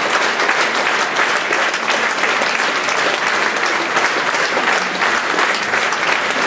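Large audience applauding, a dense and steady clatter of many hands clapping at once.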